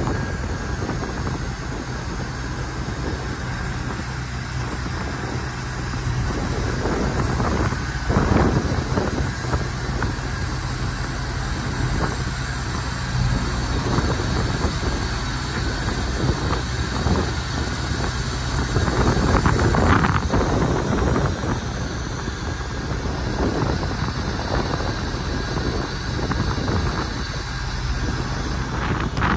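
The Peterbilt 357 truck's diesel engine runs steadily, driving the hydraulic inspection boom as it swings. Wind buffets the microphone in gusts.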